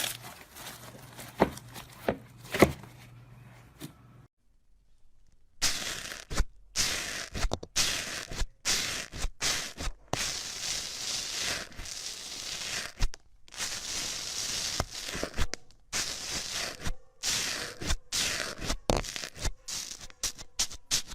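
Slime being squeezed and stretched by hand: sticky crackling and popping with many sharp clicks. There is a short pause about four seconds in, and then the crackling turns denser.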